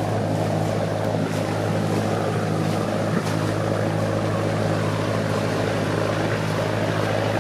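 The inboard diesel engine of a large motor cruiser running steadily under way, a constant low hum, with the churn of its propeller wash.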